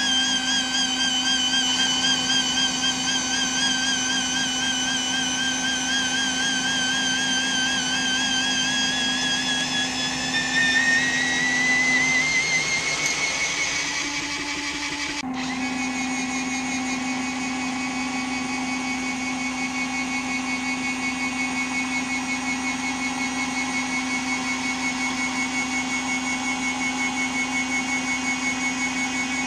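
Small electric hydraulic pump of a radio-controlled model tipper trailer whining as it lifts the tipping body, its pitch rising as the load pours out. It cuts off abruptly about halfway, then runs again at a steadier pitch as the body is let down.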